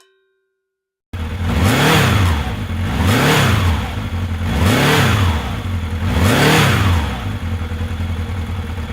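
Motorcycle engine revved up and back down four times, about a second and a half apart, starting about a second in.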